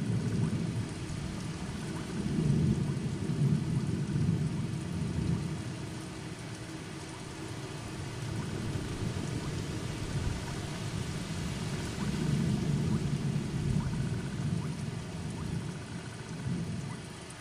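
Steady rain falling in a downpour, with low rolls of thunder that swell twice, about two seconds in and again about twelve seconds in.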